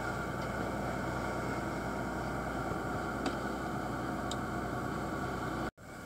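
Dive boat's engine running steadily under a hiss of wind and water, with two faint clicks about three and four seconds in. The sound cuts off abruptly near the end.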